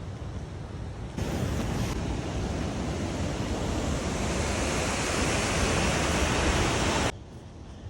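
Rushing water of a mountain waterfall: a steady, loud roar that steps up about a second in, grows louder, then cuts off abruptly near the end.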